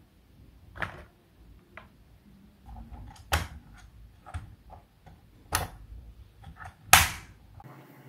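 Sharp plastic clicks, about half a dozen, with a little handling noise between them, as the FL980 keyboard's two-stage flip-out feet are snapped up and down. The loudest click comes near the end.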